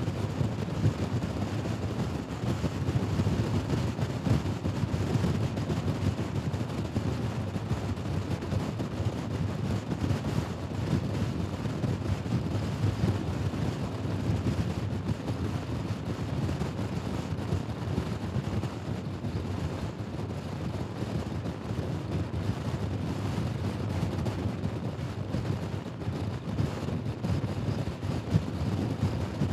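A Honda Forza scooter riding at a steady speed: a constant wind rush and rumble on the microphone, with the scooter's engine running underneath.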